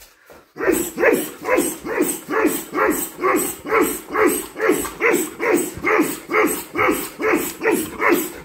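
A man grunting hard in a fast, even rhythm, two to three short grunts a second, starting about half a second in. Each grunt is the effort of a punch in a hand-weight punching drill.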